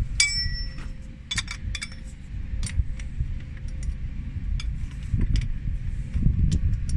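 Metal hydraulic fittings and hand tools clinking and knocking while being handled, with one ringing metallic clink just after the start, over a low rumbling background.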